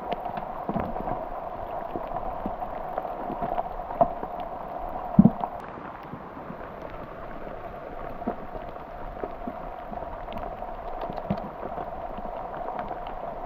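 Steady heavy rain with scattered drip ticks, and one louder thump about five seconds in.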